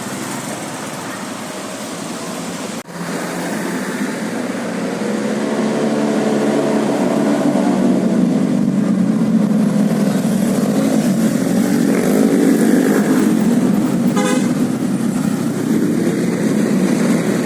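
A bus's telolet basuri horn, a multi-tone horn, playing a tune over road traffic noise. The tune comes in about five seconds in and goes on for about ten seconds.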